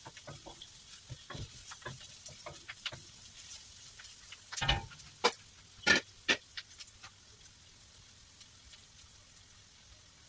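Wooden spatula scraping and tapping against a wok while stirring onion, garlic and ginger frying in oil, over a faint sizzle. A few louder knocks come about five to six seconds in as the spatula is lifted out, after which only the faint sizzle is left.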